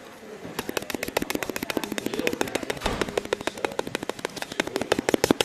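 A person making a mouth sound effect: a rapid, even train of sharp clicks or pops, about eight a second, starting about half a second in and growing louder.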